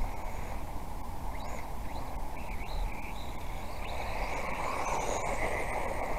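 Steady rumble and rattle from a camera riding on a 1/18-scale RC car as it drives over a dirt track, with brief high chirps now and then.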